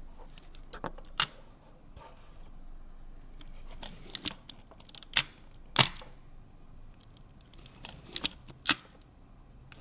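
Film camera being fired over and over: a string of sharp mechanical clicks from the shutter and film mechanism, a second or more apart and uneven in loudness, picked up by a microphone pointed right at the camera.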